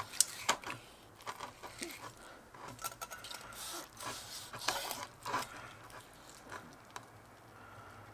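Knife and fork clicking and scraping while cutting into a roasted pork hock. There are two sharp clicks within the first half second, and the scraping and cutting noises die down after about five and a half seconds.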